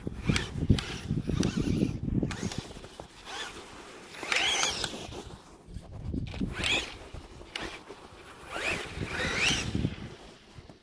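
The HBX Bonzer RC monster truck's Surpass Hobby 3650 3900 kV brushless motor and drivetrain whine in three bursts of throttle, about four, six and a half, and nine seconds in, each whine rising sharply in pitch as the truck speeds up on snow.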